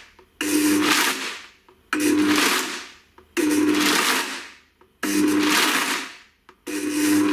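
Blendtec blender pulsed five times in a row, chopping nuts, dates and dried fruit: each pulse starts sharply with the motor's hum and the clatter of the contents, then winds down over about a second, about every one and a half seconds.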